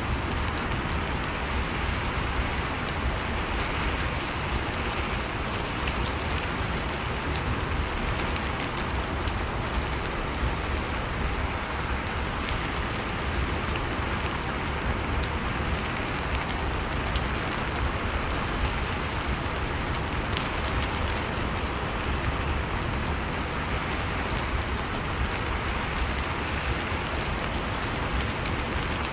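Steady rain falling, with scattered droplet ticks over an even hiss.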